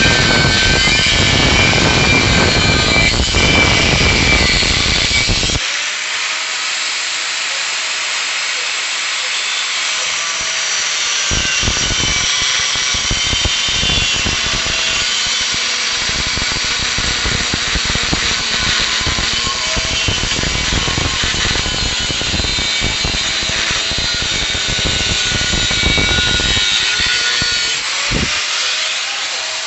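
Bench drill press driven by a treadmill motor, running and working material with a high, scratchy sound and steady faint whines. A heavy rumble in the first five or six seconds stops suddenly.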